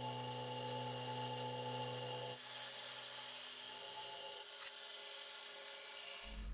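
Milling machine motor running with a steady hum, shutting off about two and a half seconds in, followed by a single click.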